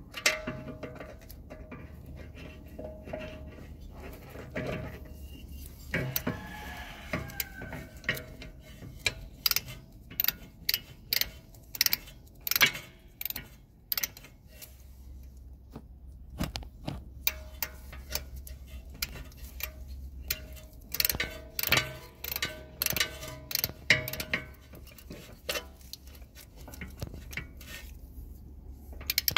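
Ratchet wrench clicking in irregular runs of quick clicks as it is swung back and forth, tightening bolts.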